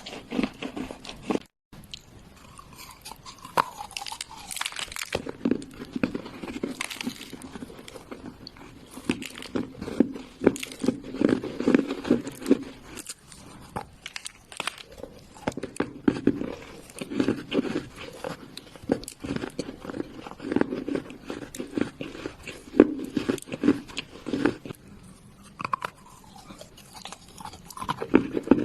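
Wet earthy clay being bitten and chewed close to the microphone: irregular crunches, one after another, with a brief silent break about a second and a half in.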